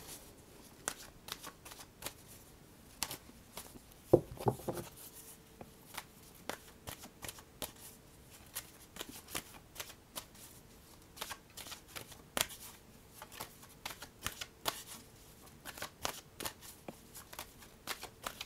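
Deck of oracle cards being shuffled by hand: a long run of quick, soft card flicks, with a louder knock about four seconds in.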